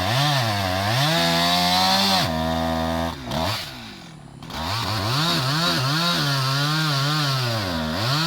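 Chainsaw running at high speed and cutting, its pitch repeatedly sagging and recovering under load. A little before the middle it drops back to a low idle for about a second, then revs up and cuts again.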